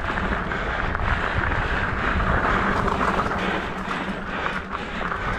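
Trek Stache mountain bike ridden along a rough dirt trail: a steady rush of wind on the microphone over tyre noise, with faint ticks and rattles from the bike.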